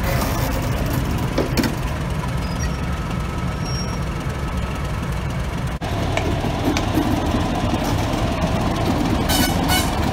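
Class 31 diesel-electric locomotive's English Electric V12 diesel engine running at idle, a steady low engine note. A few sharp clicks come near the end.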